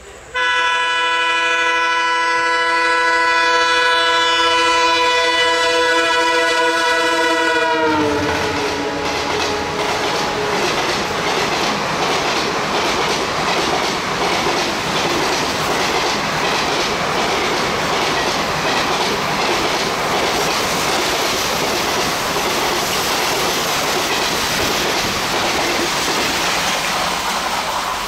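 WDM-3D diesel locomotive's horn sounding one long blast of about seven seconds as it approaches, dropping in pitch as the locomotive passes. Then a 24-coach express train rushes past at speed, a loud steady roar with wheels clattering over the rail joints.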